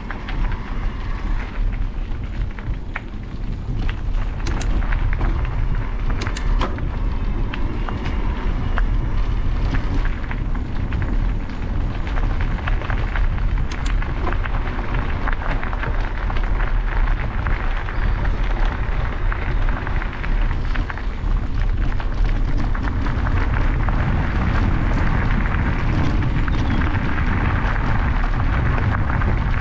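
Wind rumbling on the microphone and bicycle tyres crunching over gravel as an e-bike rides along a gravel path, with scattered clicks of loose stones.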